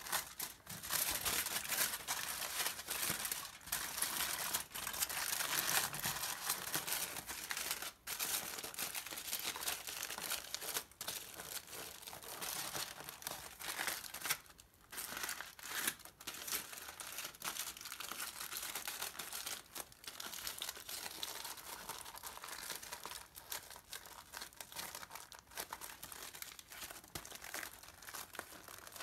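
Aluminium foil crinkling and crumpling as it is folded and pressed tight by hand, with a few brief pauses.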